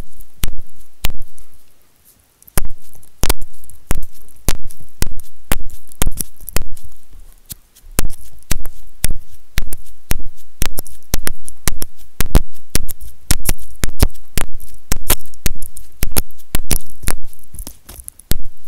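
A rubber mallet tapping a small microphone that hangs on its cord: a quick, irregular run of sharp knocks, each dying away fast, two or three a second, with short pauses about two seconds in and again near eight seconds.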